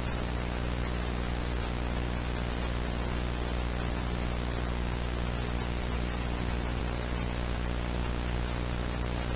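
Steady static hiss over a low electrical hum.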